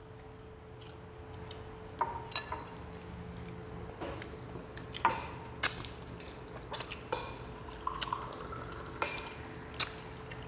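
Metal spoons and forks clicking and scraping against ceramic plates and bowls during a meal, with wet mouth sounds of eating, in scattered short taps; the sharpest click comes near the end. A faint steady hum runs underneath.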